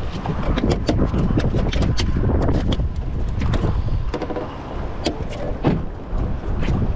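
A speckled trout flopping on a fiberglass boat deck: a run of irregular slaps and knocks, over steady wind on the microphone.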